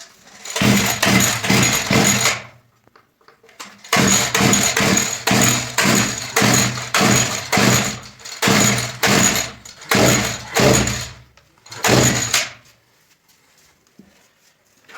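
Small mower engine cranked over in about five separate start attempts, sputtering in short spells without catching and running. It will not start, and the fault is later traced to the fuel and air side.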